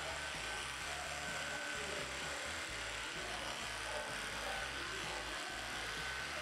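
Cordless electric dog clippers running steadily with a thin, steady whine as the blade shaves through a Chow Chow's matted double coat.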